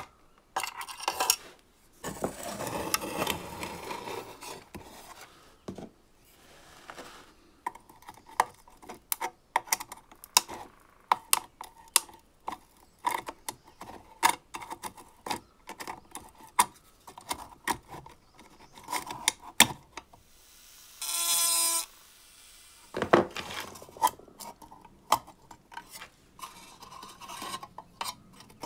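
Screwdriver unscrewing small screws from the rusty sheet-steel housing of an old emergency stop lamp, with metal parts handled and shifted: many sharp clicks, taps and short scrapes. One brief pitched ring or squeak lasts about a second, three quarters of the way through.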